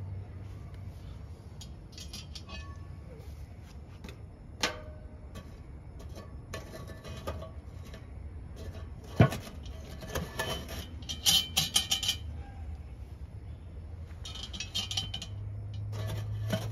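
Metal tongs clicking against charcoal briquettes and a sheet-metal tray, then a cast-iron Dutch oven clanking: one sharp knock about nine seconds in and bursts of metallic clinking as the pot and its bail handle are moved over the coals.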